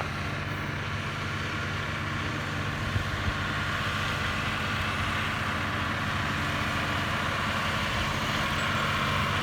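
Engine running steadily, growing slightly louder.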